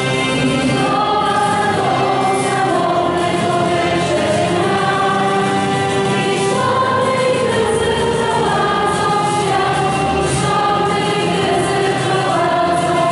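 A large group of children and adults singing a slow song together, with long held notes.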